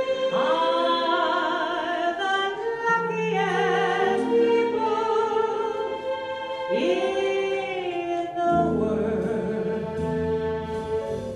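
A woman singing over instrumental backing music, holding long notes with a wide vibrato.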